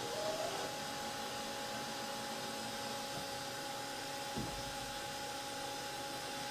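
CNC mill running an automatic touch-probe cycle: a steady machine hum with two steady high tones. There is a short rising whine near the start, and a falling whine with a low thump about four and a half seconds in, as the axes move the probe.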